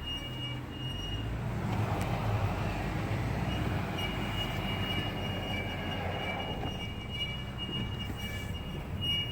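A car's unexplained noise: a thin, high-pitched squeal that comes and goes over a steady low rumble, which the owner calls terrible.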